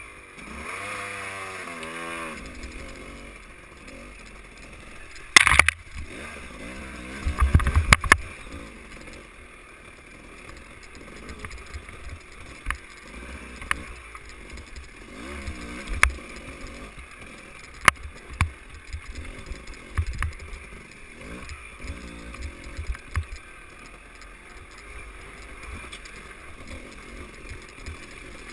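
Dirt bike engine revving up and down over and over as it is ridden slowly over rough trail. Sharp knocks and clatter come from the bike striking rocks and logs, the loudest about five and eight seconds in.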